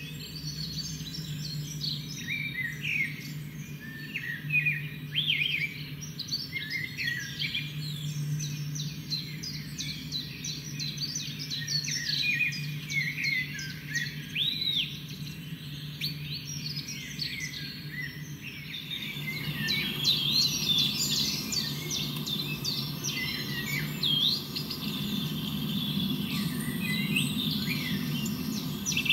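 Wild birdsong and chirping from a bird video played through computer speakers: many short chirps and whistled calls over a steady low hum. About 19 seconds in the recording changes to a busier scene with more background noise and denser calls.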